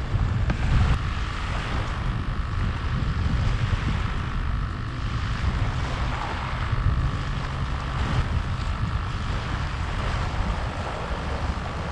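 Wind buffeting the microphone with a steady low rumble, over small waves washing onto a sandy beach; a faint steady drone runs underneath.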